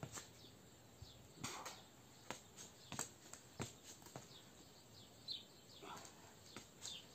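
Faint, irregular taps of trainers landing on stone paving during mountain climbers, with a few faint bird chirps.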